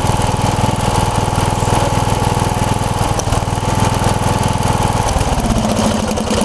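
1990 Craftsman riding mower's 15 hp Briggs & Stratton OHV engine running steadily, then slowing down at about five seconds in.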